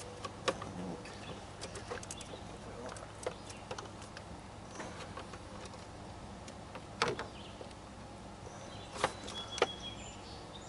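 Scattered light clicks and knocks of hands and tools handling parts in a car's engine bay, around the cooling fan, with a few sharper taps about seven and nine seconds in.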